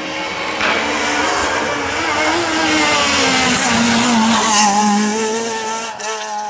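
Renault Clio rally car's engine running hard at high revs as the car approaches and passes close by. It grows louder toward the middle and the engine pitch falls as it goes by, with a few short sharp crackles.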